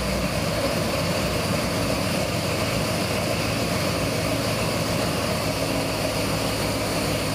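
Fuel-injected 408 cubic inch Ford Windsor stroker V8 idling steadily on an engine dyno, with no revving.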